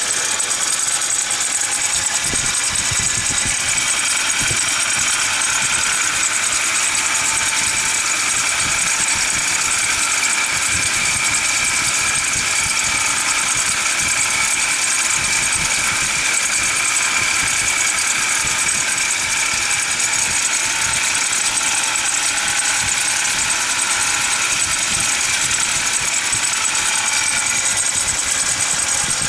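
Car engine running with a steady high whine from around the fan belt, the noise of a faulty pulley.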